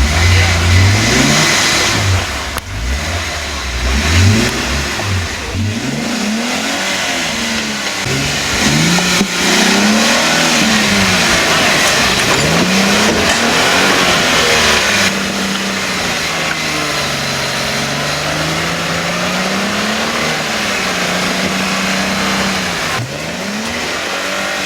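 Lifted off-road Jeep's engine revving up and falling back again and again as it crawls over rough terrain, with a heavier low rumble in the first few seconds and a steady hiss underneath.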